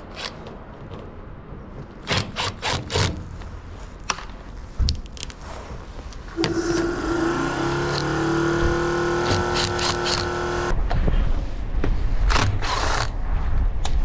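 Makita cordless impact driver running screws out of a washing machine's top panel. After a few clicks and knocks of handling, its motor whines steadily for about four seconds, then gives way to a rougher, louder low noise with sharp clicks.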